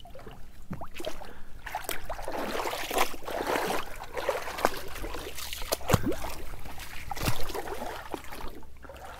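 Shallow creek water sloshing and splashing as someone wades and moves about at the water's edge, with a few sharp knocks among it.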